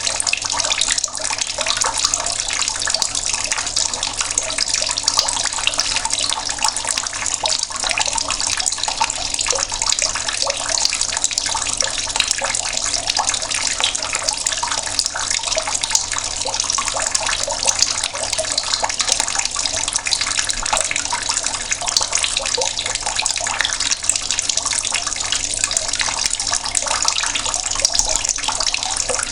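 Water tap running in a slow, steady stream, the water splashing continuously as it falls.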